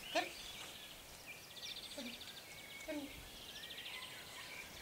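Birdsong: a songbird's rapid high trill repeating in stretches a couple of seconds apart, with other chirps between. A few short calls fall in pitch, the loudest just after the start and two more around two and three seconds in.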